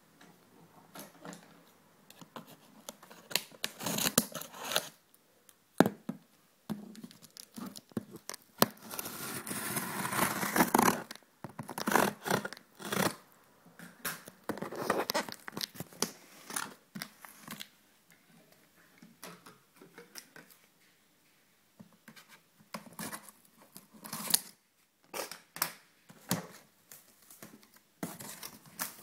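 Cardboard box being handled and opened: scratching, scraping and tearing of its packing tape and cardboard in irregular bursts, with a longer continuous ripping stretch about nine to eleven seconds in.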